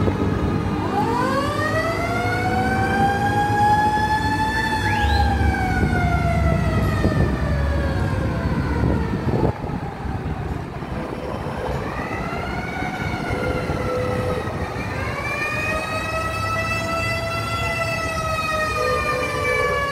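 A siren wailing in two slow cycles, several tones at once, each rising over a few seconds and then slowly falling. Under it is the low running of car engines in slow traffic.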